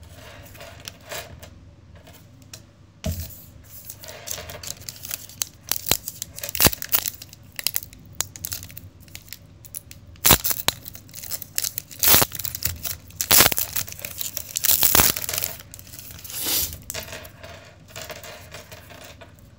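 Foil wrapper of an NBA Hoops trading-card pack being torn open and crinkled by hand: a run of sharp crackling tears and rustles, loudest a little past halfway through.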